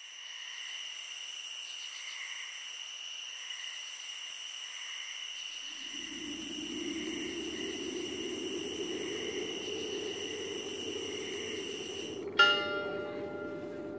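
A church bell struck once near the end, ringing on and slowly fading. Before it there is a steady, high-pitched chirring of insects at dusk, joined about halfway through by a low rumble.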